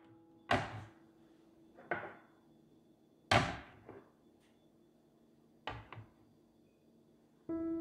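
A serving tray and glass dishes set down on a table: a series of separate knocks and clinks, the loudest about three seconds in. Near the end a glass mug is set down with two quick knocks.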